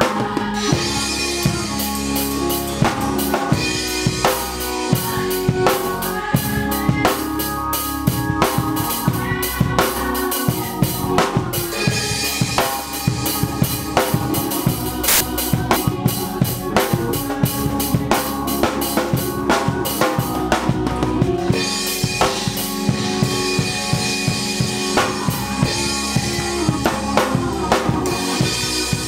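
Drum kit played in a steady, busy groove, with snare and bass drum strikes and cymbals, over held notes from other instruments playing along.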